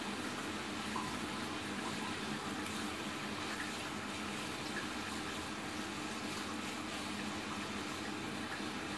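Sugar syrup boiling in a pan, a steady soft bubbling; the syrup is at the boil and ready for the paneer patties to be cooked in it.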